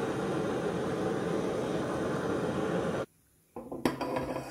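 Handheld butane torch burning steadily with a flame hiss while it heats a steel rod, cut off abruptly about three seconds in. Then light metallic clicks and knocks as the heated rod is slid into the crepe iron's hollow roller.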